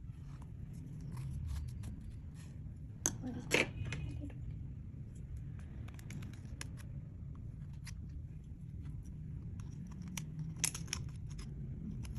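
Small sticky clicks and crackles of clear slime being worked by hand with crumbled makeup mixed in. There is a louder cluster of clicks about three seconds in and again near the end, over a steady low hum.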